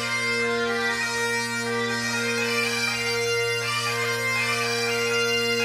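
Bagpipe music: steady drones held under a moving chanter melody.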